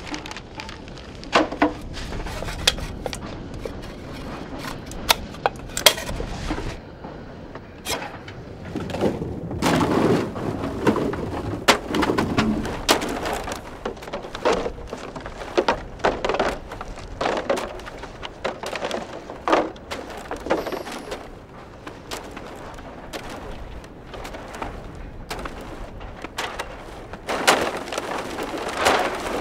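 Plastic bottles and scrap being handled and sorted: irregular knocks and clatters with bursts of crinkling plastic.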